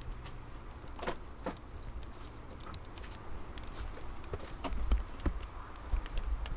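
Wood fire burning in a stove, crackling with irregular sharp pops over a low steady rumble.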